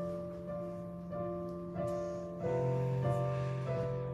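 Instrumental interlude of a song on piano or keyboard: sustained chords over a held bass note, the chord changing about two and a half seconds in.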